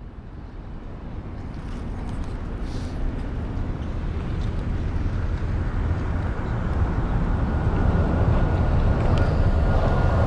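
Skate wheels rolling on pavement: a steady rumble that grows gradually louder, joined by a thin steady whine about nine seconds in.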